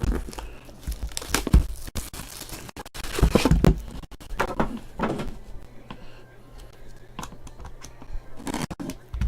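Trading-card boxes and pack wrappers being handled and opened: cardboard rustling and crinkling, with tearing and a few sharp knocks.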